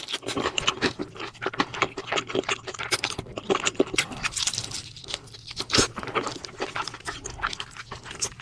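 Close-up chewing and mouth sounds of a person eating: irregular wet clicks, smacks and crunches.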